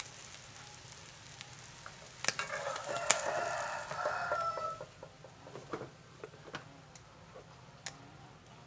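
A rooster crows once, starting about two seconds in and ending on a drawn-out note, over the faint sizzle of oil in a pan. A few sharp clicks of a utensil against the pan are heard.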